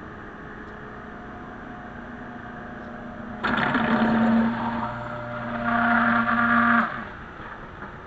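Small submersible pump in a bucket of dehumidifier water switching on about three seconds in, running loudly with a steady hum and rushing water as it pumps the bucket down, then cutting off suddenly about three and a half seconds later. A quieter steady hum runs underneath.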